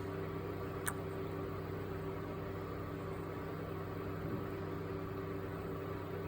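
Steady electrical hum of a running appliance or motor, with several fixed low tones. One small sharp click about a second in.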